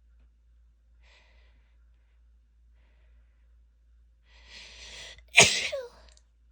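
A woman sneezes once: an audible drawn-in breath for about a second, then one sharp, loud sneeze with a short voiced tail that falls in pitch.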